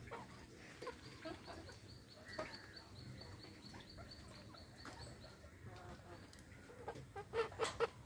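A flock of chickens clucking, with scattered soft clucks and then a quick, louder run of clucks near the end.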